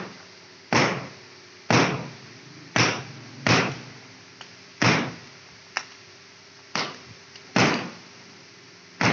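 Tensioned binding on a compressed clothing bale being cut with a utility knife: about nine sharp snaps, roughly one a second, as the straps and cord give way.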